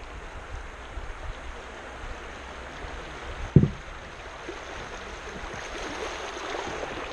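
Kayak moving down a river: steady rushing and lapping of water along the hull, with splashes from paddle strokes that swell toward the end. A single sharp knock about halfway through, likely the paddle striking the kayak.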